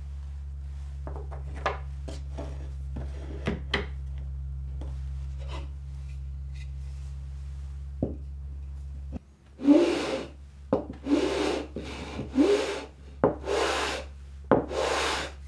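A few light knocks of wood and clamps being set down over a steady low hum that stops about nine seconds in. Then the edge of a wooden board is rubbed back and forth on sandpaper backed by a flat glass plate, about six strokes, each under a second long.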